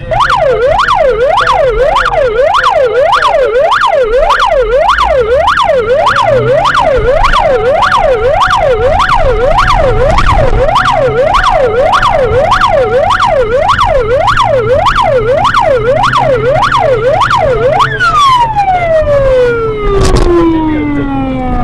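Police car siren in a fast up-and-down yelp, about two cycles a second. About three-quarters of the way through it winds down in one long falling glide. A sharp knock comes shortly before the end.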